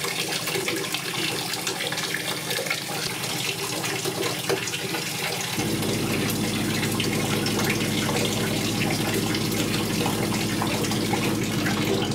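Tap water running into a darkroom tray holding a black-and-white print, a steady splashing rush. About halfway through, a low steady hum joins in.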